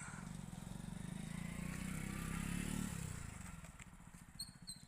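A motorcycle engine running, growing louder until about three seconds in and then fading away.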